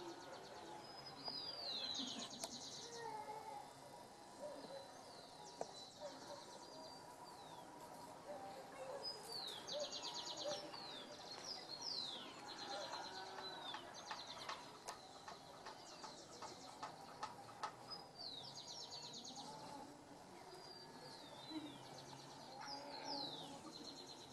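Bird song: a short phrase of high down-slurred notes ending in a fast trill, repeated about six times, over faint background noise.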